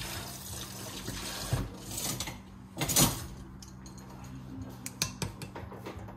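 Water running from a kitchen tap into a sink, easing off after about two seconds, with one loud knock about three seconds in and a couple of light clicks near the end.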